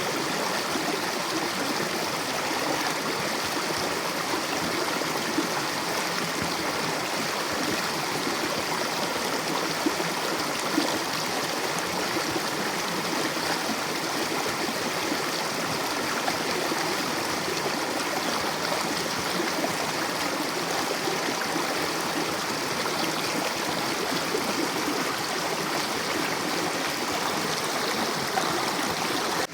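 Mountain river running over rocks, a steady rushing and gurgling of water.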